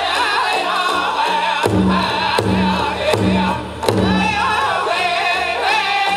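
Powwow drum group singing a chicken dance song in high, wavering voices over a steady beat on a large powwow drum. Near the middle, a few harder drum beats about 0.7 s apart stand out above the rest.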